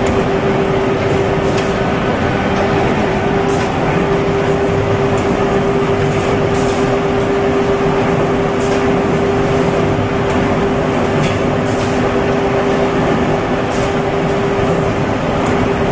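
An inline flexo printer slotter die-cutter folder gluer for corrugated boxes running at speed, giving off a steady, dense mechanical din with a constant hum. Faint light clicks come every second or two.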